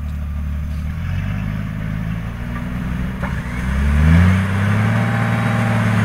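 Off-road 4x4's engine running under load, revving up about a second in and again near four seconds, then holding at higher revs as the vehicle starts to climb out of the river on a tow rope.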